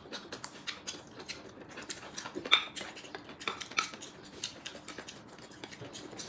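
Chopsticks tapping and clicking against ceramic plates and bowls at the table: light, irregular clicks, with one louder clack about two and a half seconds in.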